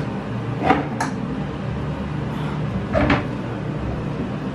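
Kitchen wall-cabinet doors being opened and shut while someone rummages on the shelves: a few sharp knocks and clicks, over a steady low hum.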